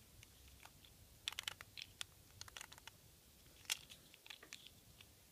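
Faint, scattered clicks and taps of small plastic Micro Drifters toy cars being handled in the fingers, coming in a few short clusters with one sharper click later on.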